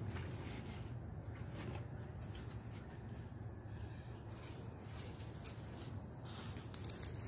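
Faint rustling of leafy and dry vine cuttings being handled and pushed down into a plastic bucket, with a few light crackles near the end, over a steady low hum.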